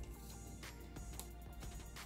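Quiet background music, with a few faint crinkles of nail transfer foil sheets being handled.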